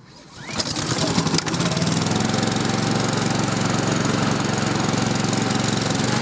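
A Flymo XL500 hover mower's Honda 5.5 hp four-stroke engine is pull-started after standing unused for a couple of weeks. It catches straight away, about a second in, and then runs steadily at speed.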